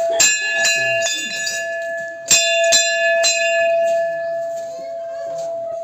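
Hanging temple bell rung by its clapper: about three quick strokes, a short pause, then three more, each leaving a ringing tone that dies away near the end.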